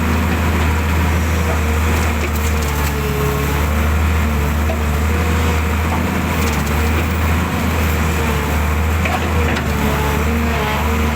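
Hydraulic excavator's diesel engine running steadily at work, with a faint wavering whine above the drone and scattered cracks and clunks.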